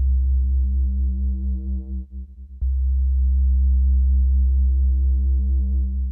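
Oberheim OB-8, then OB-X8, analog polysynths playing the St. Genevieve preset, recorded direct: a low held chord that fades out about two seconds in, then the same kind of low chord struck suddenly about two and a half seconds in, held and fading near the end. The preset lets vibrato fade in slowly on held notes.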